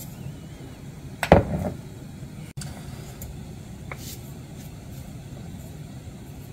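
A glass jar knocked down on a kitchen counter about a second in, a sharp knock with a brief ring, then a few faint clicks of jars and spoon, over a steady low hum.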